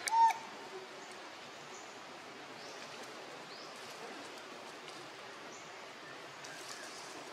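A baby macaque gives one short, high-pitched squeak right at the start. Forest background follows, with faint insect buzzes rising in pitch a few times.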